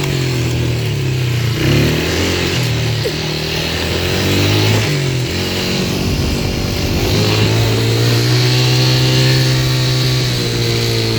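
Four-wheeler (ATV) engine running as it is driven, its pitch dipping and picking up again several times, around two seconds in, near five seconds and again around seven seconds, then holding steady.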